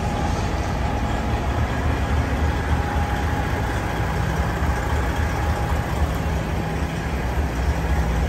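Steady city street noise: a continuous low rumble of traffic engines with a faint steady hum above it.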